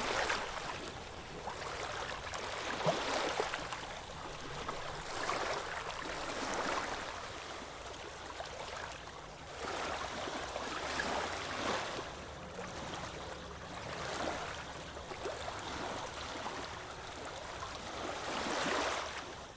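Ocean waves washing onto a beach: a steady surf wash that swells every couple of seconds, fading out at the very end.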